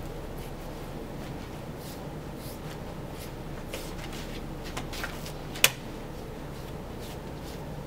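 Boning knife slicing and trimming beef on a wooden cutting board: faint scraping strokes and small clicks, with one sharp click a little past halfway.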